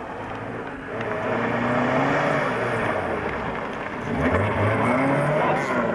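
A car engine being revved hard, its pitch climbing and dropping repeatedly as the car is driven quickly around cones on loose dirt. It gets louder about four seconds in.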